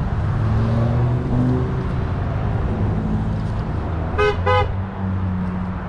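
Road traffic passing, with a car horn giving two short beeps in quick succession about four seconds in.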